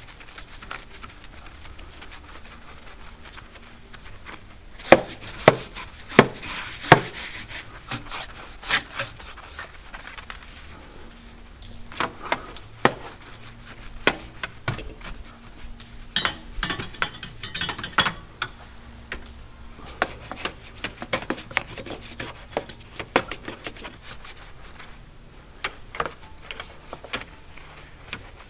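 Irregular knocks, clicks and rubbing of parts and tools being handled, with a few short hissing scrapes.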